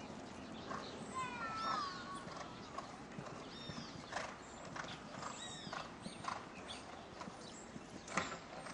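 Hoofbeats of a show-jumping horse cantering on a sand arena, heard as scattered dull knocks, with a few short high-pitched calls over them.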